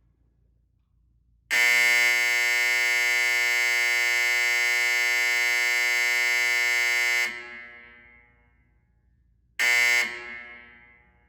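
Old electromechanical fire alarm horn sounding a loud, steady buzzing blast of about six seconds, then one short blast about two seconds later. Each blast trails off in an echo.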